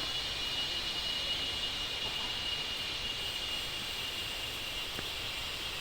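Steady rushing noise of Thi Lo Su waterfall, with a high, steady insect drone over it.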